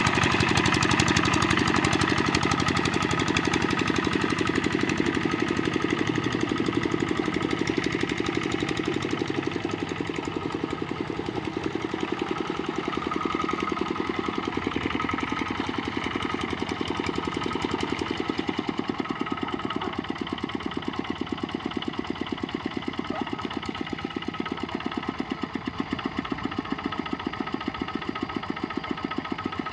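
Kubota RD65 single-cylinder diesel engine of a hand tractor running steadily with a fast, even beat, becoming somewhat quieter after about ten seconds.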